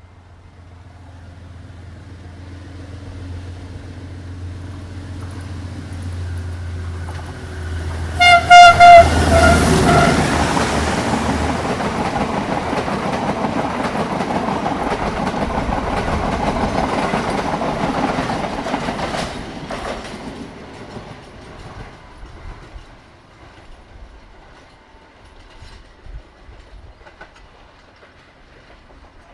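A diesel train approaches with its engine humming and growing louder. About eight seconds in it sounds its horn in several short blasts, then passes close by with wheel and track noise, which fades away as it goes.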